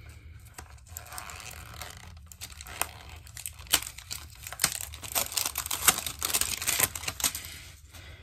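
Packaging crinkling and crackling as a small box is opened and unwrapped by hand, in irregular crackles that come thickest in the second half.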